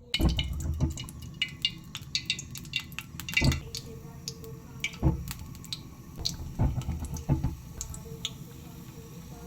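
Cooking sounds: irregular sharp clicks and light knocks over a low steady rumble.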